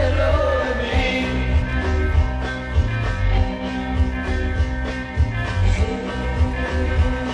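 A 1960s rock-and-roll band recording playing, with a steady drum beat under held chords.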